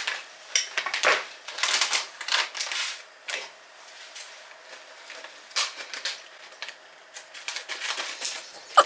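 Hand-held lemon squeezer pressing lemons: a quick run of crackling clicks over the first three seconds, then sparser single clicks.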